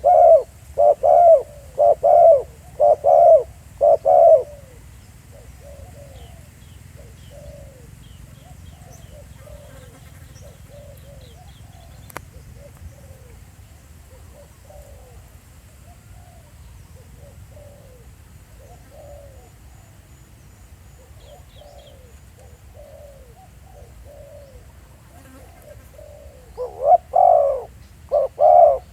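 Spotted dove cooing: a rapid run of loud, repeated coos for the first four seconds or so, fainter cooing through the middle, then loud coos again near the end. This is the calling of a decoy dove used to lure wild doves.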